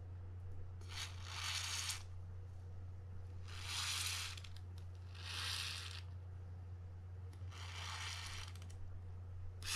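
Aerosol spray can hissing through a red extension straw in four short bursts of about a second each, soaking the corroded, grease-caked drag stack of a fishing reel's spool so the seized parts can soak loose.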